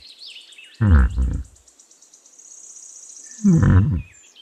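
Yak grunting: two deep grunts, one about a second in and one near the end, each dropping in pitch. Thin high chirps run behind them.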